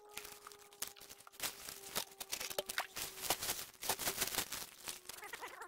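Muddy water and gravel sloshing and splashing as a bucket of dredged creek material is poured into a plastic gold pan in shallow creek water, with many small irregular splashes and clicks that get busier after about a second and a half.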